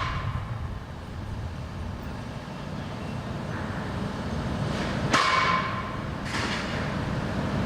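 Construction-site background: a steady low rumble of machinery, with a ringing metal clang about five seconds in and a duller knock a second later.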